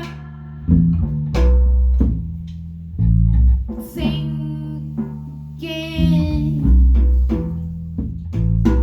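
Live band music: bass and guitar playing under a singer who holds long, wavering notes.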